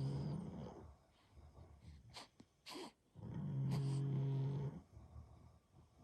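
Newborn baby hiccuping: two short, sharp hiccups about half a second apart, between two long, low, steady hums of over a second each.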